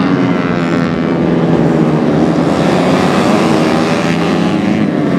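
Several Honda Astrea-based underbone race motorcycles, small single-cylinder four-strokes, running at high revs as they race past. The sound is loud and steady, with several engine notes overlapping and drifting in pitch.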